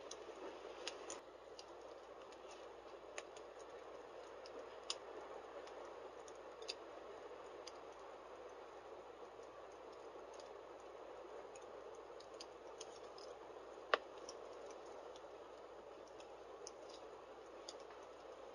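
Fire burning in a fireplace: a faint, steady rush of flame with a few sharp crackles here and there, the loudest about 14 seconds in.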